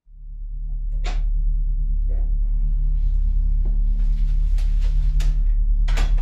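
A low, steady droning tone fades in from silence as an ominous film-score drone. Over it come scattered sharp clicks and knocks, first about a second in and then more often toward the end, which fits someone coming in through a front door.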